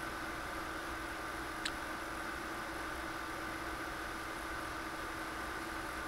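Steady hum and hiss of computer equipment, with a few faint steady whining tones. One single short, sharp high sound about a second and a half in.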